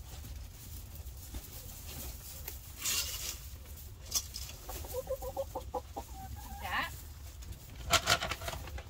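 Hens clucking in short calls, with two brief scratchy noises about three seconds in and near the end.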